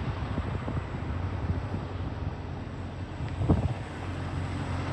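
Steady low hum of a parked tractor-trailer's diesel running, with one short knock about three and a half seconds in.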